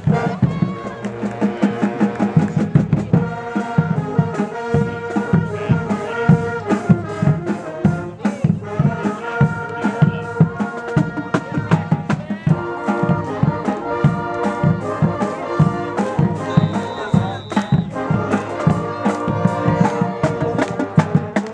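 Upbeat music with brass and a steady drum beat. A brief high steady tone sounds once, about three-quarters of the way through.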